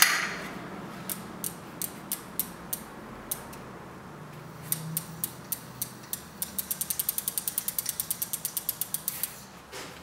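Bicycle rear wheel turned by hand, its freewheel ratchet clicking. Scattered clicks at first, then a steady run of about eight clicks a second that stops about a second before the end.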